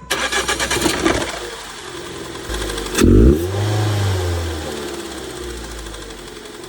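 Volvo car engine breathing through a newly fitted cone air intake, running and then blipped once about three seconds in, the revs rising sharply and falling back to idle.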